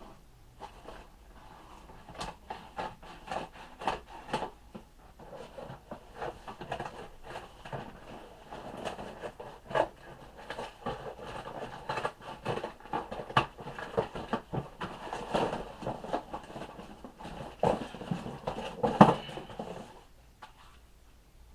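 Plastic and cardboard packaging being handled and unwrapped, crinkling and rustling with many irregular clicks and knocks as toy parts come out of the box; the loudest knock comes near the end, and the handling stops shortly after.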